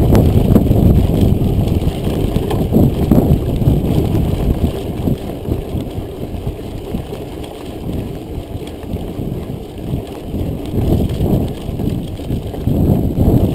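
Mountain bike rolling fast over a dirt forest road: a rough rumble of tyres on gravel and rattling from the bike, mixed with wind buffeting the microphone. It is loudest at the start, eases in the middle and picks up again near the end.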